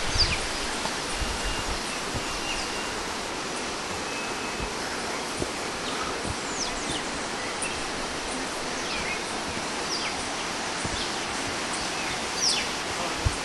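Rainforest ambience: a steady, even rushing hiss, with a bird giving short high calls that sweep downward, a handful of times, and a thin steady whistle in the first few seconds. A single short knock comes near the end.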